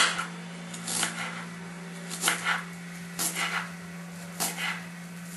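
Kitchen knife slicing through green onion bulbs onto a wooden board: short cuts about a second apart, some in quick pairs, over a steady low hum.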